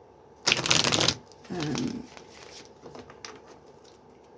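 Tarot cards being shuffled: a loud, fast riffle about half a second in, then softer card handling and a few light taps.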